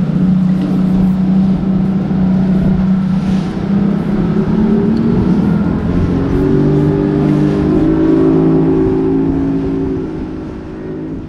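A boat's outboard engine running underway. It speeds up as the throttle is pushed forward about halfway through, rising in pitch, then holds steady at the higher speed.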